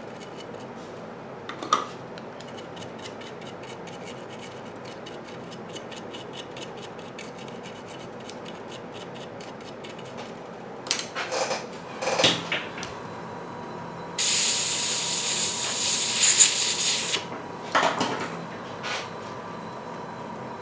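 Stiff brush scrubbing rapidly back and forth over a Clementoni Clempad tablet's circuit board, cleaning it around a freshly soldered micro-USB charging connector. Partway through, a few knocks of handling, then a loud hiss lasting about three seconds.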